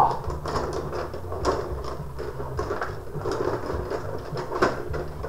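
Tabletop rod hockey game in play: a steady plastic rattle of rods being pushed, pulled and spun, with irregular sharp clicks as the players strike the puck.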